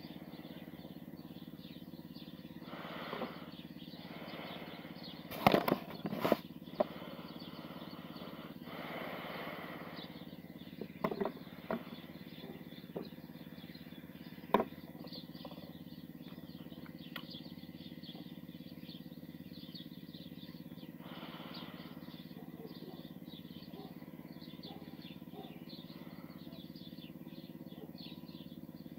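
Outdoor background with a steady low hum like a distant motor, broken by a few sharp clicks and rustles in the first half and some soft brief noisy swells.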